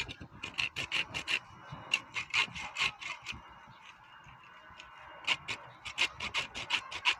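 Hand-held hacksaw blade sawing through a rooster's spur in quick rasping back-and-forth strokes, about three to four a second. The strokes weaken to a light scraping about halfway through, then pick up again.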